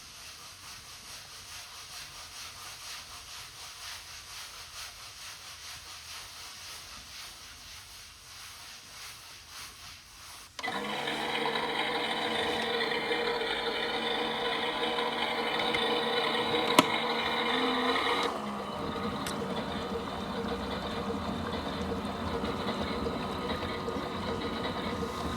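Miele Novotronic W377 washing machine running in its rinse programme: a soft hiss with a slow, regular swell, then about ten seconds in a louder machine hum with steady tones cuts in suddenly, and its sound changes again near eighteen seconds.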